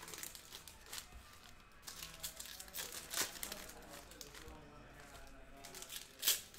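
Trading-card pack wrappers crinkling and tearing as packs are opened and cards handled, in short irregular rustles with a sharper, louder one near the end.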